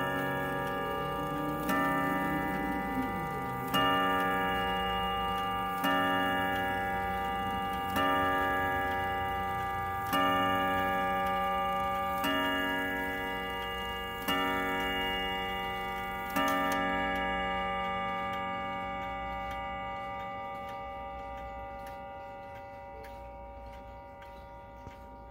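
Howard Miller Jennison triple-chime wall clock striking the hour on its chime rods, one ringing stroke about every two seconds, eight strokes in all. After the last stroke, about two-thirds of the way through, the ringing slowly dies away over the clock's ticking.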